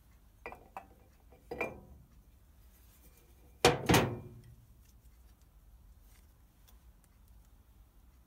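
Pressed-steel valve cover of a Citroën 2CV engine being handled and set down on a workbench: a few light knocks, then a loud double clank with a short metallic ring a little before halfway.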